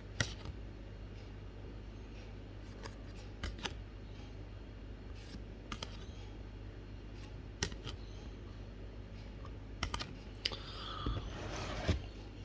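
Yu-Gi-Oh trading cards and their foil booster pack being handled: scattered light clicks and taps a second or two apart, with a soft rustle near the end, over a low steady hum.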